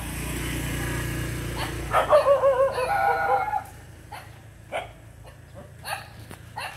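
Small dog making a drawn-out, wavering whine, the loudest sound, followed by several short yips about a second apart. A low steady hum runs underneath at first.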